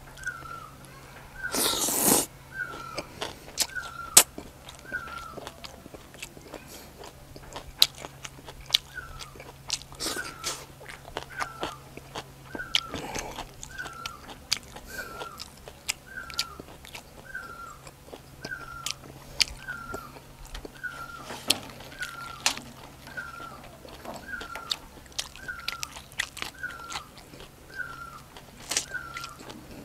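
A person eating papaya salad with rice noodles and raw vegetables: wet chewing and crunching bites throughout, with a louder, longer noisy burst about two seconds in. A faint high chirp repeats about once a second behind it.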